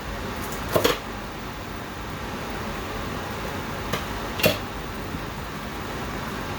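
Steady kitchen hum with a few sharp knocks of cookware: a quick double knock about a second in and another just past four seconds.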